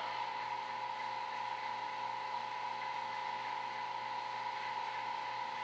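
Steady background hum with a constant mid-pitched tone, unchanging throughout: workshop room tone from running equipment.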